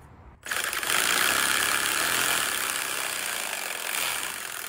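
Reciprocating saw cutting through a plastic livewell tube. The steady, noisy cutting sound starts about half a second in and eases off slightly toward the end.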